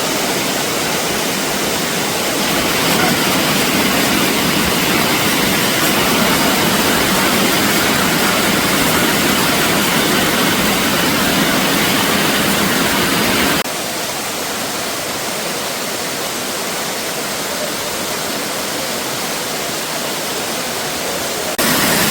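Elephant Falls waterfall: a steady rush of falling water. It drops suddenly quieter a little past halfway and comes back up just before the end.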